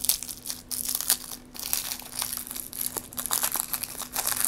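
Chupa Chups lollipop wrapper, a printed film over a thin clear plastic layer, crinkling and tearing in a run of irregular crackles as fingers peel it off the candy.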